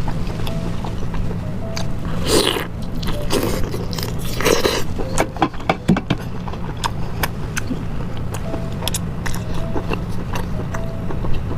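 Close-miked eating: a person biting into and chewing juicy food with wet smacks and clicks, and two louder wet bites or slurps about two and four and a half seconds in. Soft background music plays underneath.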